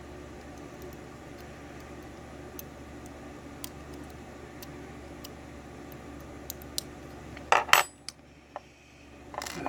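Faint metallic ticks of small tools working a lock. About seven and a half seconds in, small metal pieces clatter down onto a hard surface with a short bright ring, and another clatter comes near the end.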